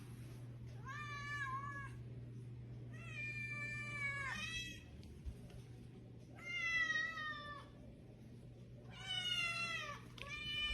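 A domestic cat meowing: four long, drawn-out meows about two to three seconds apart, with a fifth starting near the end.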